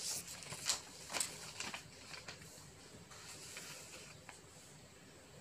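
A steel spoon stirring sugar into milk in a steel pot, making a few soft scrapes and clinks against the pot in the first couple of seconds, then fainter ones.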